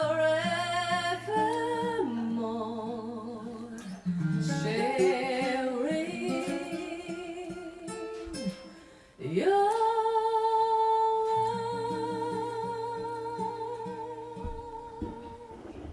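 A song played back through a tube hi-fi amplifier and speakers: a singer holds long notes with vibrato over guitar. The last note starts about nine seconds in and fades away near the end.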